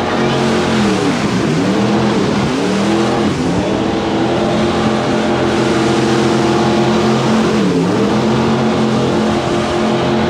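Jet boat engine running hard, its note dropping and climbing back again three times as the throttle is eased and opened, over a steady rushing noise.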